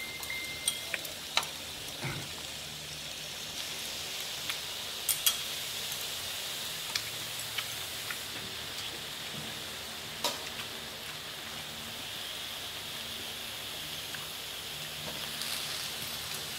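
Beef and vegetables sizzling steadily on a hot tabletop grill pan, with a few sharp clicks scattered through it, two of them close together about five seconds in.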